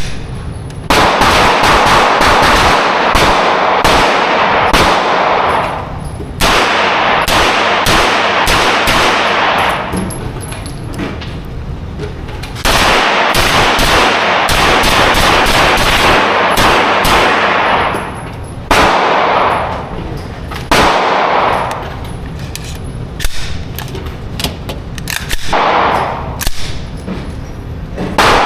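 Rapid gunfire in several long strings of fast shots, a few seconds each, with short pauses between strings.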